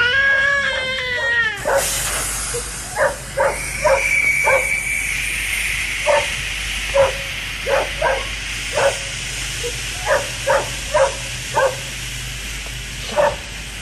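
A baby crying for about the first second and a half. Then a dog barking over a steady background hum, short sharp barks coming in runs of two to four.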